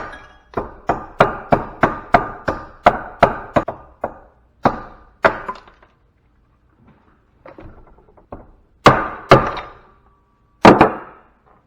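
Hammer blows on a metal part being broken out of scrap equipment: a quick run of strikes, about three a second, then slower single blows and small knocks, with the loudest strikes near the end. Several strikes leave a short metallic ring.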